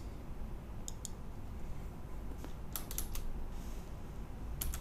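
A few computer keyboard keystrokes while a field name is typed: two about a second in, a quick run of several near the three-second mark, and two more near the end, over a faint low hum.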